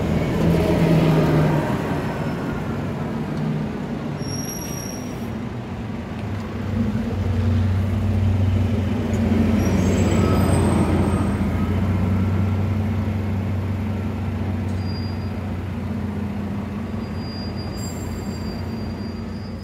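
City buses passing close by one after the other, their engines running with a steady low hum. It swells about a second in and again from about seven to eleven seconds in, with a few brief high squeaks.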